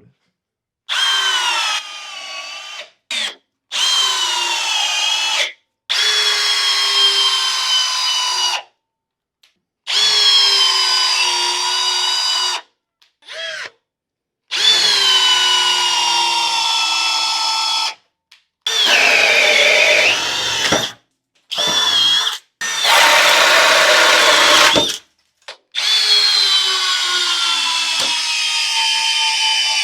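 Hercules hammer drill running in a series of about ten short bursts, each a high motor whine whose pitch sags slightly as it runs. The bursts are separated by abrupt silences, and a few near the middle have a rougher, grittier sound.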